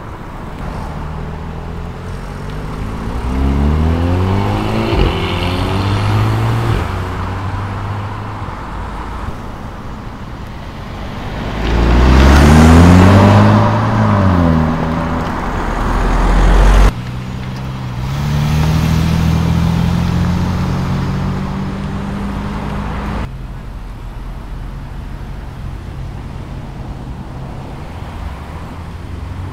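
Several cars accelerating away one after another, engines revving up in pitch through the gears. The loudest, about midway, rises and then falls in pitch as it passes close by and cuts off suddenly; another revs up shortly after and also stops abruptly.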